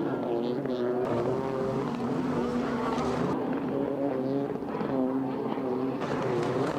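Several racing jet skis' engines running hard, their pitch rising and falling again and again as the revs change.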